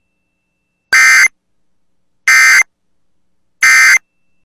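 Emergency Alert System end-of-message code: three identical short bursts of SAME digital data tones, each under half a second, about a second and a half apart. They mark the end of the broadcast warning.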